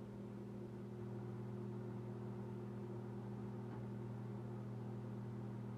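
Emerson (Daewoo) MW8625W microwave oven running with a steady low hum while it heats food, after a fuse replacement.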